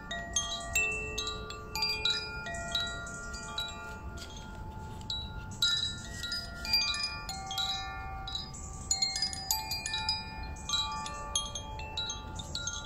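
Hand-held cylindrical tube wind chime with a hanging sail, swayed so the clapper strikes the tuned rods inside. It gives a continuous stream of overlapping ringing notes at many different pitches.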